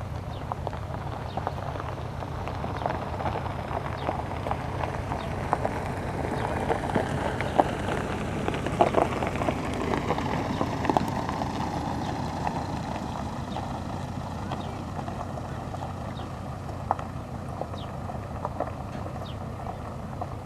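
3TE10M three-section diesel locomotive running, its diesel engines giving a steady low drone, with a rhythmic clatter of steel wheels over rail joints. It is loudest about a third to halfway through.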